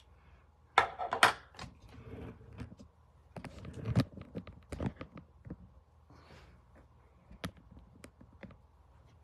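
Handling noise close to the microphone: scattered clicks, knocks and rustling, loudest in a cluster about a second in and again around four seconds, then a couple of lighter taps near the end.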